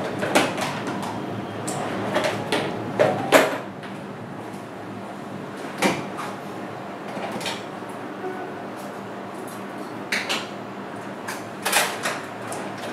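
Scattered clicks, knocks and clatter of small objects being handled and set down, with what sounds like cabinet doors or drawers, over a faint steady hum.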